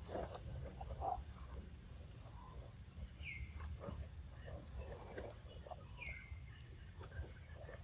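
A macaque eating ripe papaya: wet chewing and lip-smacking, with soft mouth clicks and bites at irregular intervals.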